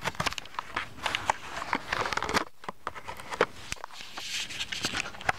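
Toy car packaging being handled and worked open: irregular clicks, scrapes and crinkling of card and plastic, with a couple of brief lulls.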